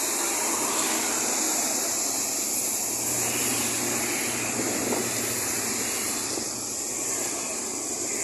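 Steady hiss of traffic on a rain-wet road, with tyres swishing, and a low engine hum from a passing vehicle through the middle.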